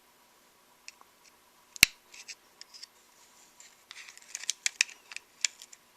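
Small clicks and light scraping of a camcorder's small plastic parts and screws being handled during disassembly, with one sharp click about two seconds in and a busier patch of clicking near the end.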